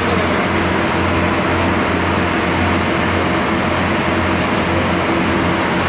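Passenger boat's engine running steadily, a low drone under a constant hiss of heavy rain and river water.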